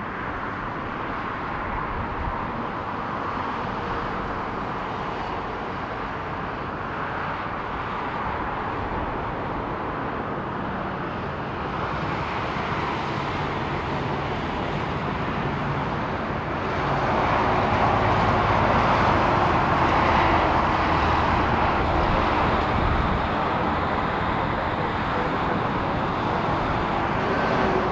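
Airbus A330-243 airliner landing and rolling out on the runway, with the steady noise of its Rolls-Royce Trent 700 jet engines. The noise grows louder about two-thirds of the way through.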